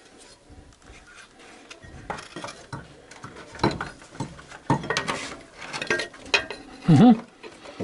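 Metal tools and parts clinking and knocking against the car's underbody as a replacement engine mount is worked into place from below; the irregular clatter gets busier after about two seconds.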